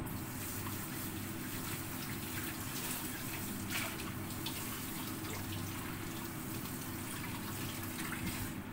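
Congee simmering in a lidded pot on a gas burner: a steady bubbling hiss with scattered small pops and ticks, over a low steady hum.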